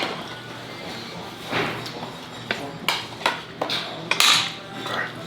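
Scattered sharp clicks and clatters of utensils and dishes on a table during eating, with two short rustling swells, the louder one near the end.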